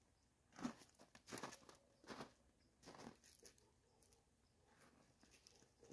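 Footsteps crunching on dry ground, about five steps roughly 0.7 seconds apart, growing fainter as the walker moves away.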